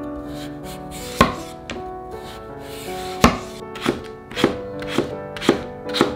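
Kitchen knife slicing a carrot on a wooden cutting board: sharp knocks of the blade on the board, a few spaced out at first, then about two a second in the second half.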